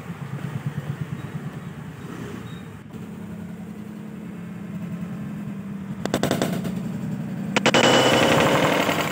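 Small hammer tapping quickly and repeatedly on the steel end plug of a spring air pistol, driving it out against the mainspring's tension. Near the end comes a louder stretch of fast, even rattling.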